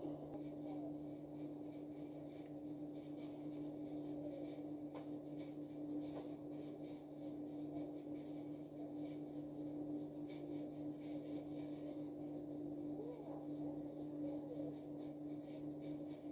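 A steady low hum under faint, indistinct room noise.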